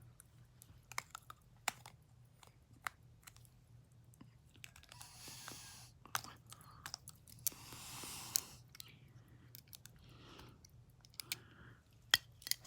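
Small scattered clicks and a few soft scraping rubs as the case of an 18-karat gold pocket watch is handled and worked open by hand.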